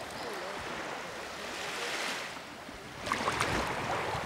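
Shallow seawater lapping and washing around a person sitting in the shallows, a soft rush that swells about two seconds in. From about three seconds in come small splashes and trickles of water.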